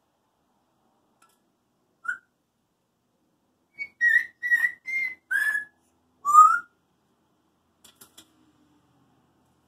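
African grey parrot whistling: a short chirp, then a quick run of about five whistled notes and a rising whistle, followed by a few faint clicks.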